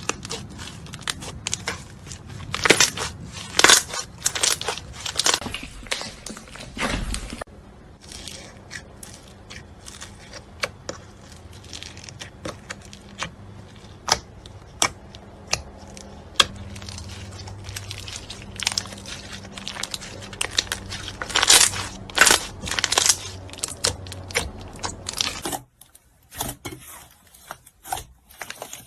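Slime being squeezed and pressed by hand, giving off irregular sharp crackles and pops. Some stretches are loud and dense, others sparser. The faint background hum changes abruptly about seven seconds in and drops away near the end, as at edits.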